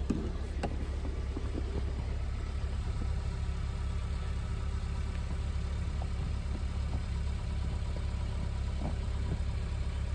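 Car engine idling with a steady low hum and a few faint clicks.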